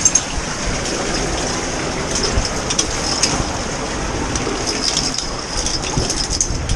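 Someone scrambling through a narrow rock gully: scrapes, ticks and a few knocks of boots, hands and the camera against rock over a steady rushing noise.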